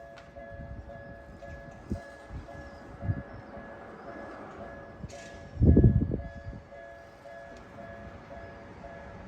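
Japanese railway level-crossing warning bell ringing in a steady, evenly repeating two-tone pattern. A few dull low thumps come through, the loudest about halfway.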